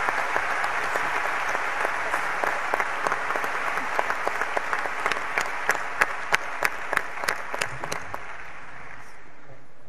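Audience applauding. About halfway through, the dense clapping thins into a few louder single claps close by, about three a second, then dies away near the end.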